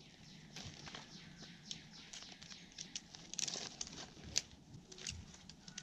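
Faint rustling and scattered light clicks as a landing net's mesh and hoop are handled, the loudest near the middle.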